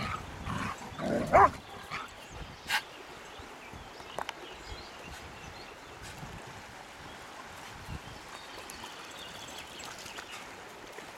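Standard poodle barking a few times, then only a faint steady background with a single sharp click.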